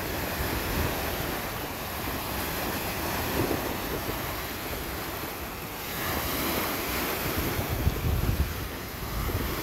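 Small wind-driven lake waves breaking and washing up onto a pebbly shore, with wind buffeting the microphone in gusts that grow stronger near the end.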